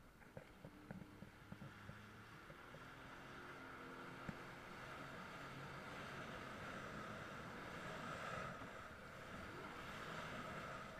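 Jet ski running at speed across open water: a steady engine note under the rush of water and wind, getting gradually louder, with a few small clicks in the first couple of seconds.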